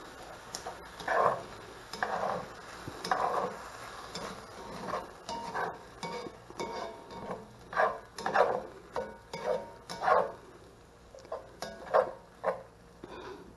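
A utensil stirring and scraping food around a cast iron skillet in short, irregular strokes, over a light sizzle of frying.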